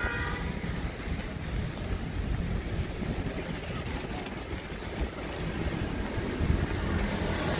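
Rainy city street ambience: a steady low rumble of traffic under an even hiss.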